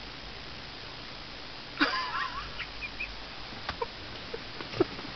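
A person's stifled, wheezy laughter breaking out about two seconds in: a sudden squealing giggle, then several short snorts and gasps over a steady background hum.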